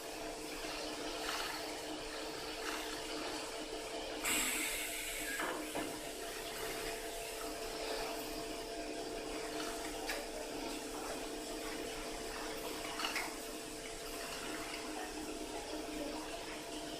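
Short-arm double-needle industrial sewing machine running steadily, a constant hum with a hiss over it. A short, louder hiss comes about four seconds in, and a few sharp clicks near ten and thirteen seconds.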